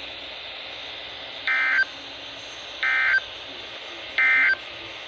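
Three short bursts of Emergency Alert System digital data tones, about a second and a half apart, over steady radio hiss: the end-of-message code that closes a broadcast severe thunderstorm warning.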